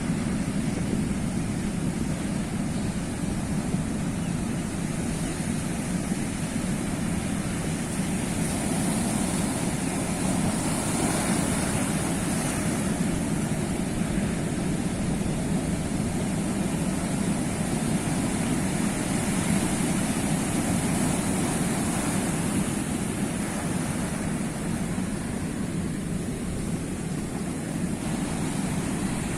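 Sea waves washing continuously on the shore, a steady rush of surf that swells slowly twice.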